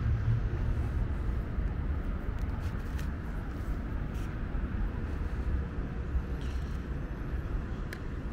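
City street ambience: a steady low rumble of road traffic, with a few short, sharp clicks scattered through it.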